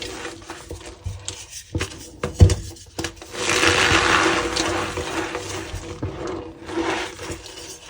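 Reformed gym chalk blocks being crushed and rubbed, with scattered crisp clicks and one sharp knock about two and a half seconds in, then longer stretches of crunching and crumbling.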